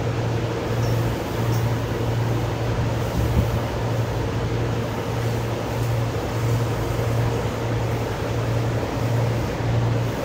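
Steady low machine hum, pulsing slightly a little under twice a second.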